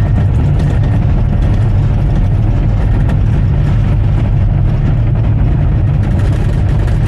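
Bulldozer's diesel engine running steadily, a loud, even low rumble with faint clatter over it.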